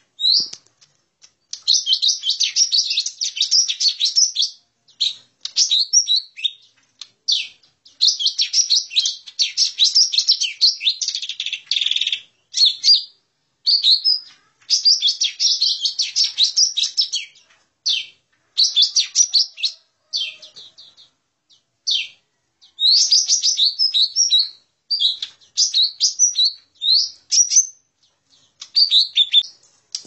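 Lesser green leafbird (cucak ijo mini) singing its aggressive fighting song: rapid, high-pitched chattering and whistled phrases in bursts of one to three seconds, separated by short pauses. This is a lure recording meant to draw wild leafbirds in.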